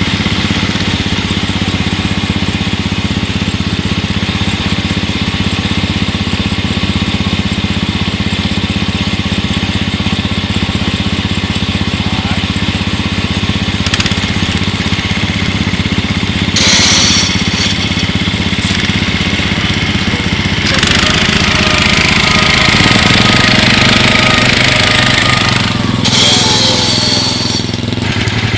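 Off-road Yazoo riding mower's small engine running steadily while the mower is stuck in mud. In the second half there is a louder stretch of rushing, hissy noise as it is driven harder.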